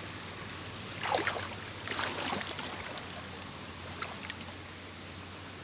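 Water splashing and sloshing a few times, most in a short cluster about a second in, over a steady background hiss.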